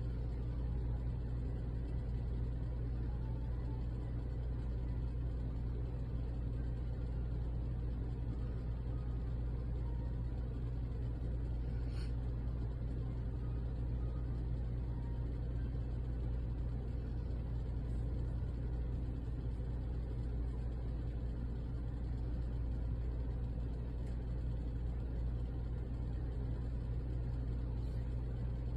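Steady low hum that does not change, with one short sharp click about twelve seconds in.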